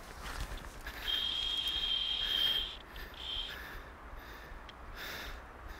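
Fly reel's drag whining as a hooked salmon pulls line off the reel: one steady high whine of about a second and a half, then a short second pull. A low rumble runs underneath.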